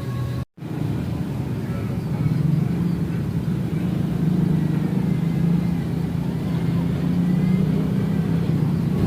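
An engine running steadily with a low hum, swelling slightly a couple of seconds in. About half a second in, the sound cuts out completely for a moment.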